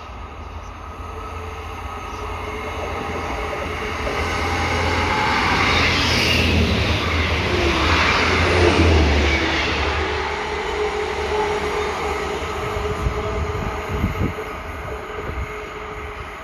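A train passing at speed: the rumble builds to its loudest about six to nine seconds in as it goes by, then slowly fades.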